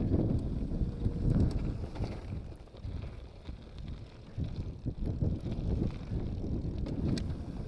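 Wind buffeting the microphone over the rumble and rattle of a mountain bike rolling fast down a loose rocky trail, with a few sharp clicks from the bike.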